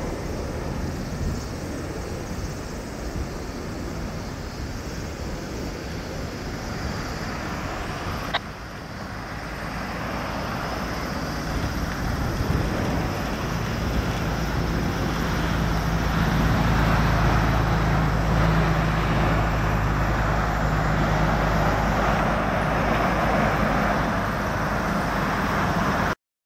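Boeing 767-300ER's twin turbofan engines at takeoff power: a jet roar as it rolls and climbs away, growing louder with a deep rumble through the second half. A sharp click about eight seconds in, and the sound cuts off abruptly near the end.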